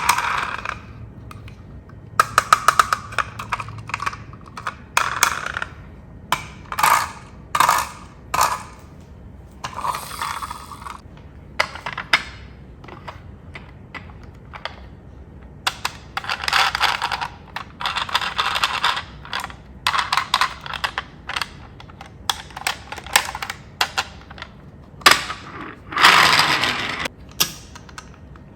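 Small hard objects being handled: irregular clicks and clatters, with longer rattling scrapes about ten seconds in, for a few seconds after the middle, and near the end.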